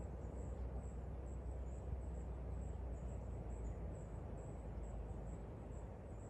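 Outdoor garden ambience: insects, like crickets, trilling faintly in high, repeated pulses over a steady low rumble.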